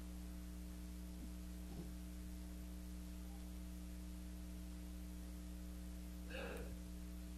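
Steady electrical mains hum over quiet room tone, with a brief soft sound about six and a half seconds in.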